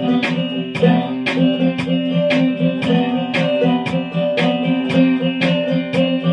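Guitar played with a slide: notes plucked in a steady rhythm of about two a second over sustained low ringing notes.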